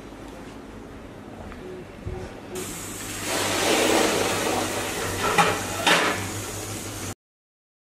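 Steam hissing out of an aluminium pressure cooker's vent as its weight valve is lifted to release the pressure, starting about two and a half seconds in, with two sharp metal clicks from the weight near the end. The hiss cuts off suddenly.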